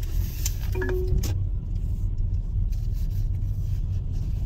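Steady low rumble of a car driving, heard from inside the cabin, with a couple of faint clicks about a second in.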